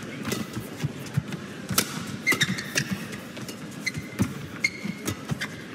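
Badminton rally: sharp, irregular strikes of rackets on the shuttlecock mixed with thuds of footwork and a few short squeaks of shoes on the court mat.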